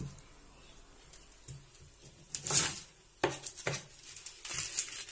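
Kitchen knife chopping an onion on a wooden cutting board: a few sharp knocks of the blade against the board, starting about two seconds in.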